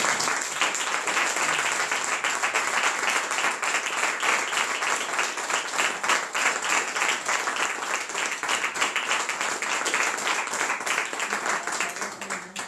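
Applause: many hands clapping steadily, dying away near the end.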